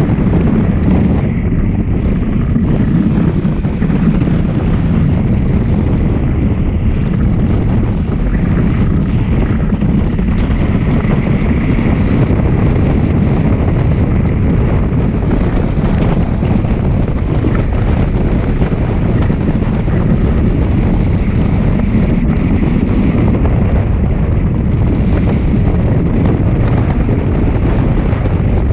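Wind from the hang glider's airspeed rushing over a glider-mounted camera's microphone in flight: a steady, loud rushing noise, mostly low.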